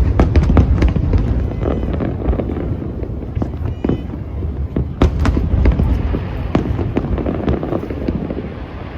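Aerial fireworks going off in quick succession: a dense run of bangs and crackles over a continuous low rumble, with another cluster of sharp bangs about five seconds in.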